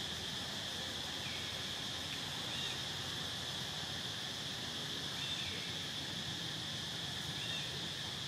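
Steady high-pitched insect drone, with a few faint short chirps scattered over it.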